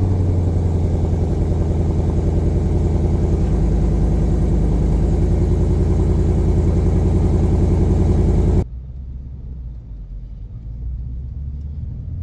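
Ford Mustang GT's V8 on its stock exhaust, with factory resonator and no H-pipe, idling steadily just after a cold start. About three-quarters of the way through, the sound cuts abruptly to a quieter, lower engine rumble.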